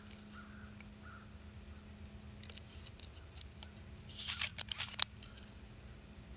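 Faint scattered rustles and ticks, with a short burst of crackly rustling a little after four seconds in that ends in one sharp click, over a steady low hum.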